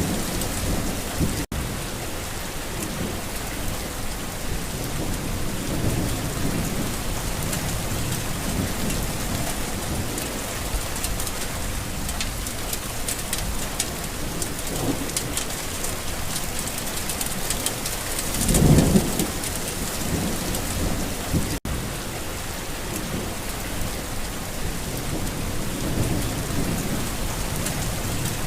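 Steady rain falling on a garden, with thunder rumbling low in the background; the loudest roll of thunder swells up about two-thirds of the way through.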